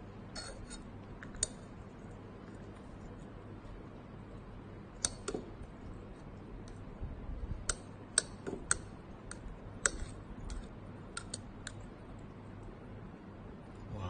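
Metal utensil stirring in a glass tumbler of water, clinking sharply against the glass at irregular intervals, most often in the middle of the stretch.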